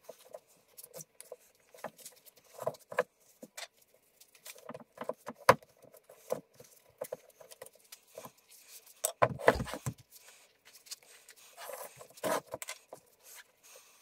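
Gloved hands working a stiff new rubber tyre onto an 8.5-inch e-scooter wheel rim: scattered short rubbing and knocking sounds as the bead is pushed over the rim edge, with a louder thump about nine and a half seconds in.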